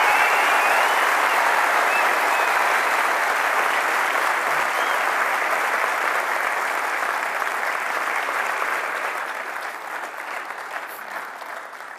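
Large audience applauding, the clapping thinning out and dying away over the last few seconds.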